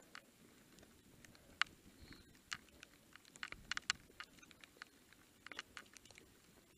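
Sparse, irregular small clicks and scuffs of shoes and a pushed mountain bike on a gravelly dirt track, over a faint low rumble.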